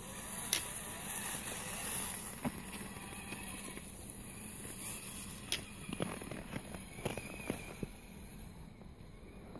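Axial SCX10 RC scale crawler driving over crusty snow: its small electric drive motor whines faintly while the tyres crunch, with scattered sharp crackles and clicks.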